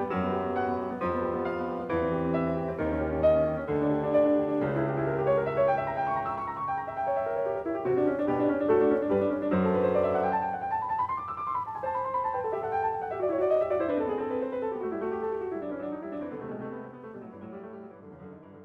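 Background solo piano music, with rippling up-and-down runs in the second half, fading out near the end.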